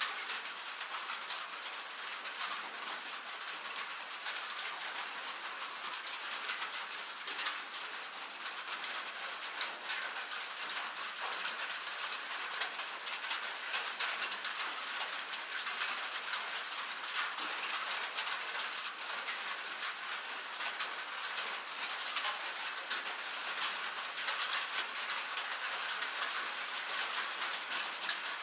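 Rain falling steadily on a metal roof: a dense patter of many small drop ticks.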